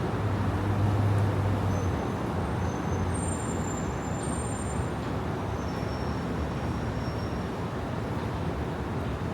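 Street traffic noise: a heavy vehicle's engine hum, loudest in the first two seconds and then easing, over steady road noise, with a few faint high-pitched whistling tones in the middle.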